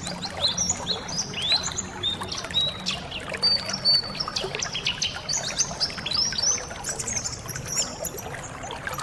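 A group of white-eyes (pleci) chirping and twittering, many short overlapping calls, over steadily trickling water.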